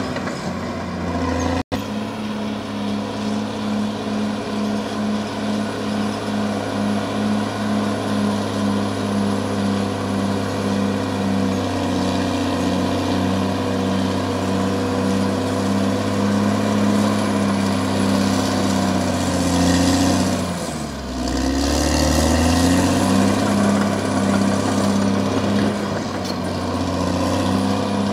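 CAT D6R XL bulldozer's diesel engine running steadily under load, with a regular pulse in its note. About two-thirds of the way through the engine note dips and then climbs back up.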